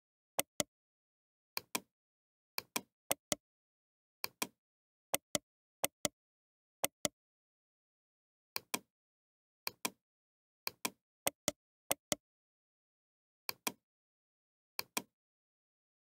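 Computer mouse button clicking, nearly always in quick pairs, about fifteen times at an uneven pace, with dead silence between the clicks.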